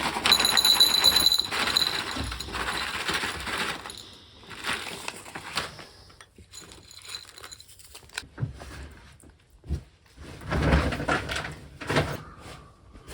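Clatter and rustle of household things being handled, loudest for the first few seconds with a brief ringing note. Softer scattered knocks and rustles follow, then another burst of handling noise near the end.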